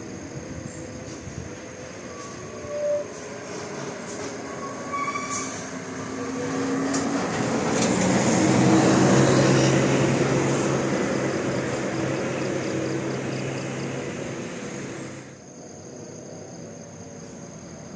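A large bus drives past: engine hum and road noise swell to a peak about nine seconds in, then fade and drop away sharply near the end.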